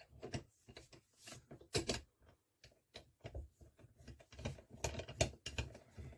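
Hand-cranked metal meat grinder being assembled: irregular metal clicks and knocks as the crank handle is fitted onto the shaft and the parts are set in place.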